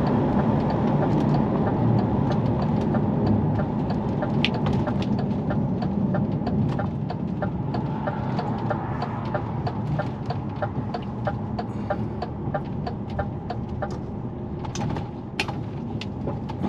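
Heavy goods vehicle's diesel engine running inside the cab, getting quieter as the lorry slows to pull off the road. Through the middle a turn indicator ticks evenly, about two to three ticks a second, and a few sharper clicks come near the end.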